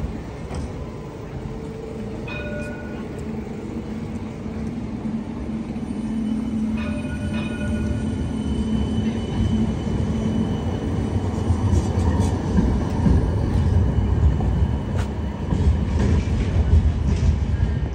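CAF Urbos 3 light rail tram running past at street level, a low rumble that grows louder through the second half. Two brief ringing tones sound, about two seconds in and again about seven seconds in.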